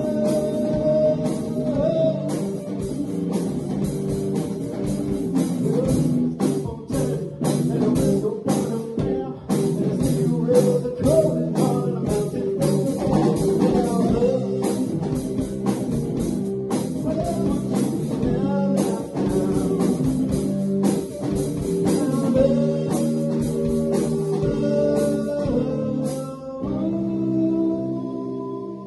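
Rock band of electric guitar, electric bass and drum kit playing together over a steady drum beat. Near the end the drumming stops and held chords ring out and fade.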